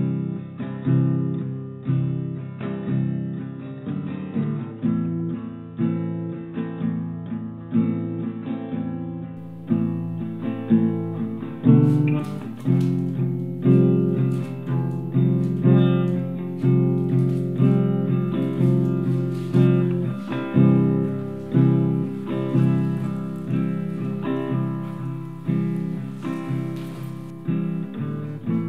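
Background music: an acoustic guitar picking a steady, rhythmic pattern of notes, sounding brighter from about twelve seconds in.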